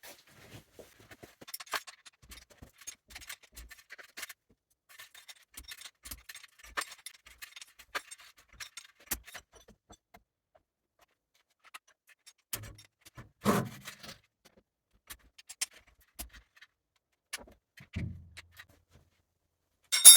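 Irregular light metallic clicks and ticks from hand work on a milling machine, with a few louder knocks in the second half. There is no motor running.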